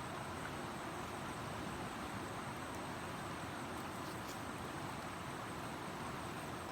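Steady, even rushing noise that holds at one level, with no distinct events.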